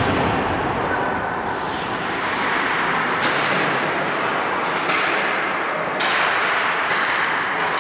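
Ice hockey play on a rink: skates scraping and carving the ice in rushes of hiss, with a few sharp clacks of sticks and puck.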